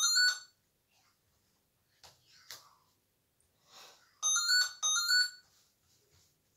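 A short run of quick electronic chime notes, played twice about four and a half seconds apart.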